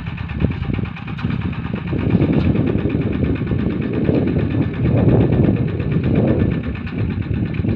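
Two-wheel walking tractor's single-cylinder diesel engine running under load as it pulls a plough through the soil. The engine grows louder about two seconds in and then swells and eases every second or so.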